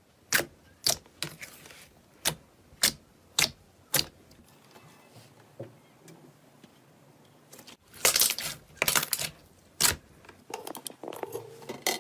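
Slime being pressed and handled: sharp clicking pops about twice a second, then after a lull a burst of dense crackling, one more loud pop and scattered crackles near the end.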